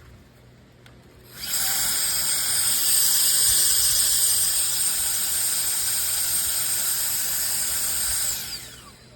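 Electric air duster's high-speed motor switched on, running with a steady high whine and rush of air for about seven seconds, then switched off and spinning down with a falling whine.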